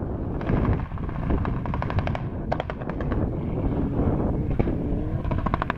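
A Mitsubishi Lancer Evolution rally car on a gravel stage, its exhaust going off in several quick runs of rapid crackling pops, with wind buffeting the microphone.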